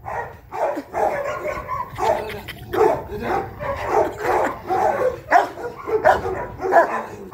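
Large leashed guard dog barking repeatedly, about one to two barks a second, at a man who is provoking it with a stick: a defensive, aggressive display.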